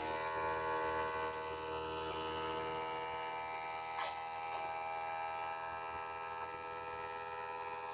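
LG UP970 Blu-ray player's disc drive giving a terrible buzzing noise while spinning a UHD Blu-ray disc, a steady many-toned buzz that holds one pitch; a faint tick comes about four seconds in. The buzz is the player's fault with UHD discs.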